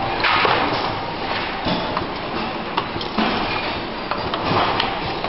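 Automatic four-station soldering machine running: irregular mechanical clacks and knocks over repeated bursts of hiss.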